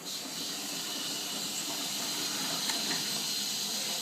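Bendix 7128 front-loading washing machine running mid-wash, giving a steady watery hiss with a few faint ticks.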